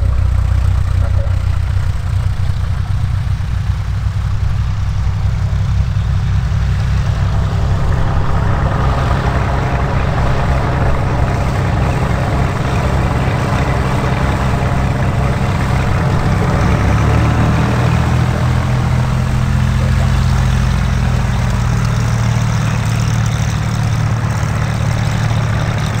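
Cessna O-2A Skymaster's push-pull twin piston engines, one in the nose and one pushing from the rear, running at low taxi power with their propellers turning; a steady low drone whose pitch shifts slightly a little over halfway through.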